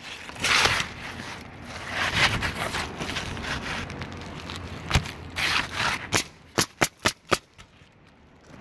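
Asphalt shingles scraping and sliding over the roof as they are laid, then a pneumatic coil roofing nailer firing five nails in quick succession, about four a second, into the new shingles.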